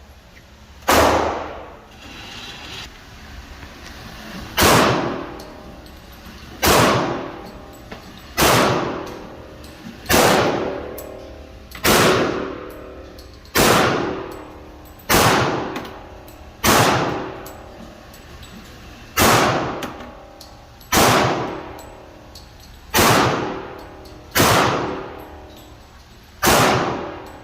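Glock 30 .45 ACP pistol fired in slow single shots, about fourteen in all, roughly one every one and a half to two seconds, each shot followed by a ringing tail that dies away over about a second.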